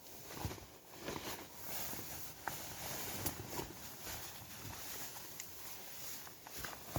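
Irregular rustling with scattered light clicks and knocks: a person moving about and handling gear while climbing into a hammock.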